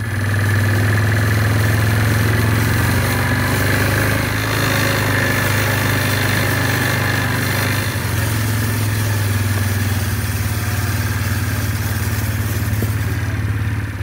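A vehicle engine running steadily, a constant low hum with a little dip in level about eight seconds in.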